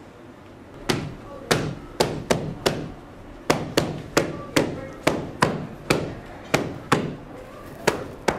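A run of sharp percussive hits, about sixteen in seven seconds in an uneven rhythm, each ringing briefly in the room, starting about a second in.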